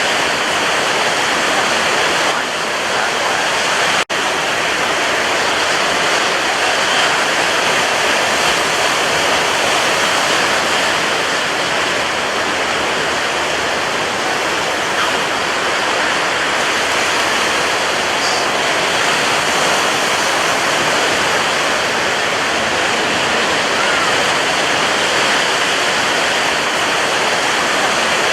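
Sea waves breaking in a continuous, steady rush of surf, with a brief dropout about four seconds in.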